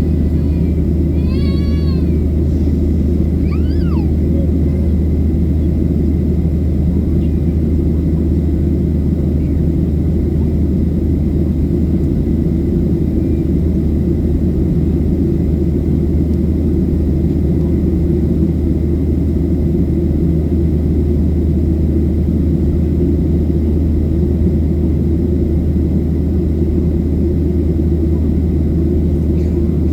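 Steady deep drone of a Boeing 737-700 in flight after take-off: its CFM56-7B engines and the airflow, heard from inside the passenger cabin. Two brief high wavering squeaks come in the first four seconds.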